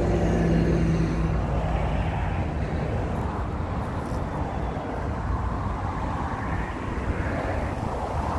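Steady rumble of a motor vehicle's engine, its engine tones fading in the first second or so and the noise easing slowly after.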